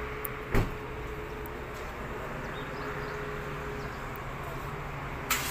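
A Toyota Corolla's car door shut with a single heavy thud about half a second in, over a steady low hum. Another sharp knock comes near the end.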